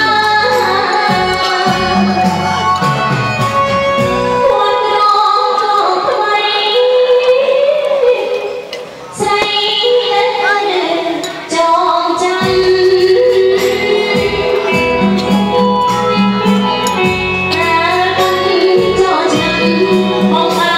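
Music: a song with a woman singing over a steady beat, which briefly drops away about nine seconds in.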